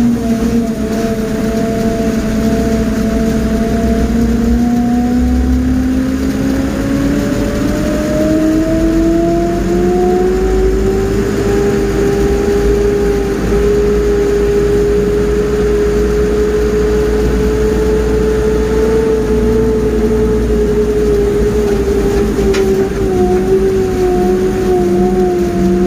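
Mobile crane's engine running as the crane drives, heard from inside the cab. The engine note climbs between about 6 and 11 seconds as it speeds up, holds steady, then eases down a little near the end.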